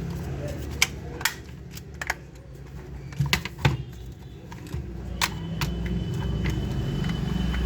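Scattered sharp clicks and taps of plastic toy gun parts being handled, a few each second, over a steady low rumble.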